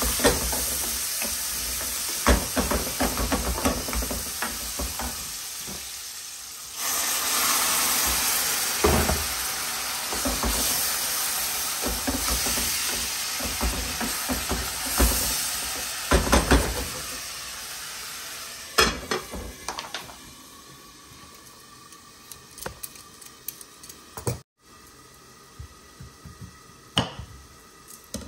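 Sliced onions sizzling in oil in an aluminium pan, stirred with a wooden spoon that scrapes the pan, louder from about seven seconds in. The sizzle fades about two-thirds through, and a few sharp knocks of a knife on a wooden chopping board follow near the end.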